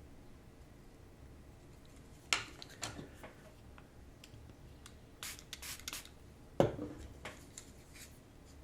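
Small plastic and silicone-rubber parts of a ceiling fan remote being handled and scrubbed with a cotton swab: two sharp taps a couple of seconds in, a bout of scratchy rubbing near the middle, and a louder knock about two-thirds of the way through.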